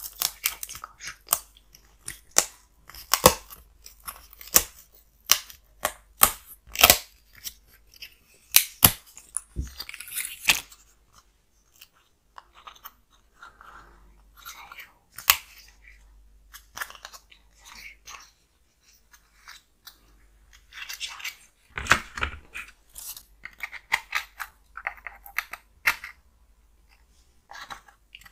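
Foam-board 3D puzzle pieces being handled and pressed together into their slots: a run of sharp clicks and crunchy crackles, busy for the first ten seconds or so, sparse through the middle, and busy again near the end.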